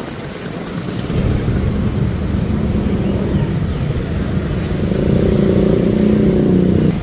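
Motorcycle engines running close by in street traffic, growing louder about a second in. The engine note builds toward the end and drops away suddenly.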